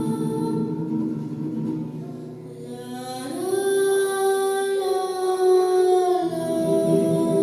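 Slow, sustained music of long held chords. The chord changes about three seconds in and again near six seconds.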